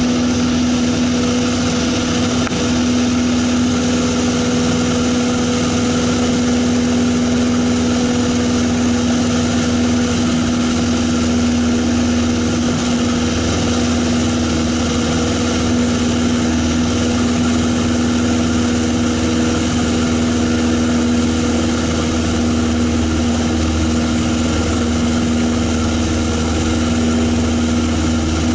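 Single-engine light airplane's piston engine and propeller running steadily at takeoff power through lift-off and climb-out, heard inside the cockpit: an even drone with a strong low hum.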